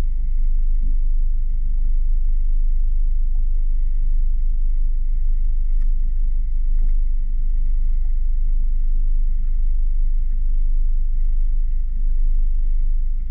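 Boat's outboard motor running steadily, a loud, even low rumble, with a faint steady high tone above it.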